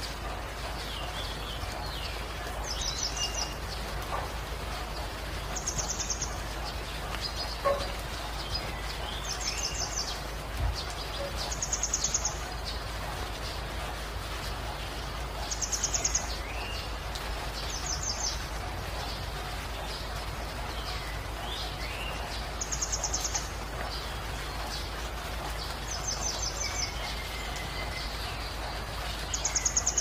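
Steady rain hiss with birds calling. One bird repeats a short, high, rapidly pulsed trill every two to four seconds, and other birds give fainter chirps and swooping notes. A single short knock comes about eight seconds in.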